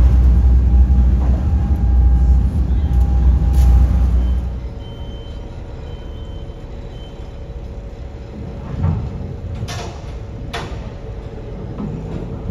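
Loud low rumble of wind buffeting the microphone over rough seas. About four and a half seconds in it gives way to a ferry's steady engine hum, with a few clanks and knocks on deck as crew handle the mooring lines.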